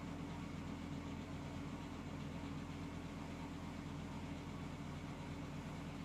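A steady low droning hum with a faint hiss, even throughout, with no breathing rhythm or snore heard.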